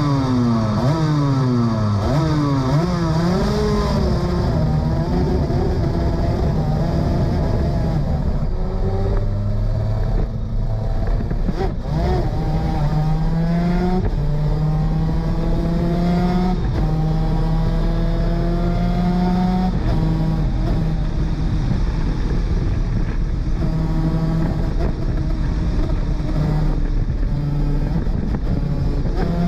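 A 250cc two-stroke superkart engine at racing speed. In the first few seconds the pitch swings quickly down and up, as in downshifts with throttle blips. Later comes a run of rising pulls, each cut by a quick drop in pitch as it shifts up through the gears.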